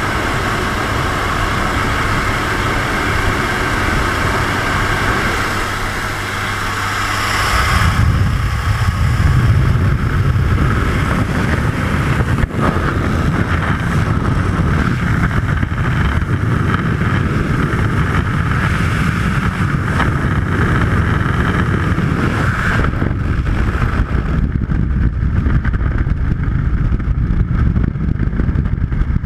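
Steady drone of a jump plane's engine and propeller mixed with rushing air at the open door. About eight seconds in it gives way to a heavy, low rumble of wind buffeting the helmet camera, which by the end is the rush of freefall air.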